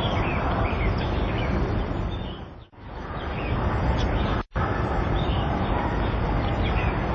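Small birds chirping in short calls over a steady, loud hiss of background noise. The sound dips out twice near the middle, once fading and once cutting off abruptly for an instant.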